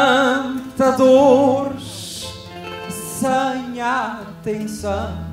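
A man singing a phrase of an Azorean cantoria verse in Portuguese with wide vibrato, in short lines broken by brief pauses. He is accompanied by plucked Portuguese guitar, viola de fado and bass.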